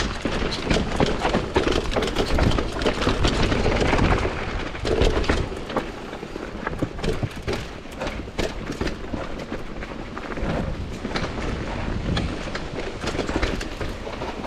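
Commencal Supreme DH downhill mountain bike rattling over a rocky trail: tyres on rock and the bike clattering in rapid, irregular knocks. A heavy low rumble runs through the first four seconds or so, then eases off.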